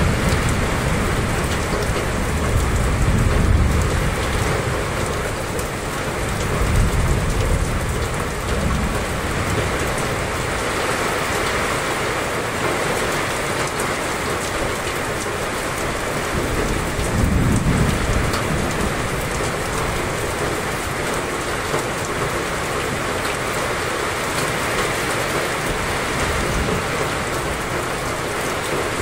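Heavy rain pouring steadily in a dense, even hiss. A few brief low rumbles rise under it: at the start, about seven seconds in, and again about seventeen seconds in.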